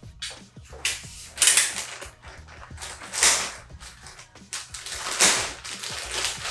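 Large clear plastic bag crinkling and rustling as it is handled and pulled open, in about four loud bursts with softer rustles between.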